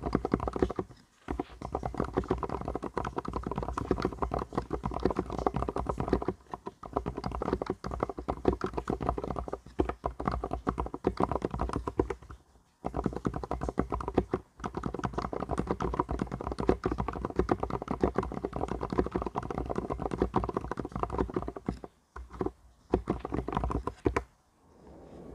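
Mstone mechanical keyboard typed on fast and steadily: a dense, continuous clatter of key presses in long runs. The runs break off briefly about a second in, and again around 6, 10, 13, 14 and 22 seconds in.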